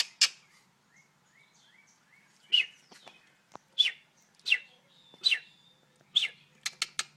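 Birds chirping, with several short downward-sliding calls about a second apart and a few faint small rising chirps. Quick runs of sharp clicking come at the start and again near the end.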